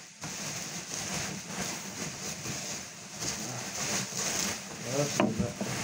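Plastic bubble wrap crinkling and rustling as hands pull at a tightly wrapped parcel.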